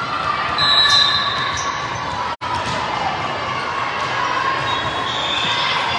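Indoor game noise in a gym: a ball bouncing on a hard court amid the chatter and calls of players and spectators, with a brief dropout in the sound about two and a half seconds in.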